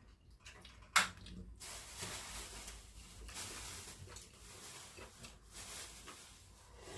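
Chopsticks clink once, sharply, against a ceramic rice bowl about a second in, then soft eating noises from scooping rice out of the bowl over a faint steady hiss.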